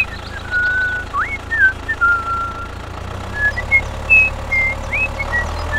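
A string of short whistled notes, some held level and some sweeping quickly upward, over a steady low engine-like rumble.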